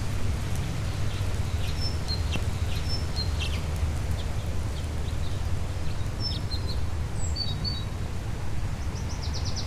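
Small birds chirping now and then in an orchard, with a quick rapid trill near the end, over a steady low rumble.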